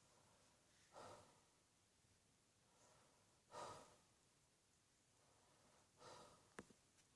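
A person breathing out audibly three times, about two and a half seconds apart, faint and breathy. A small click follows the third breath.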